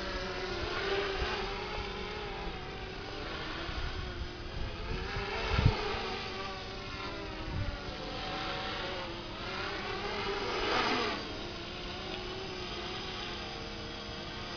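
Electric motors and propellers of a V-tail multirotor drone buzzing overhead, the pitch wavering up and down as it manoeuvres and swelling louder as it passes nearer several times. A brief low thump about five and a half seconds in.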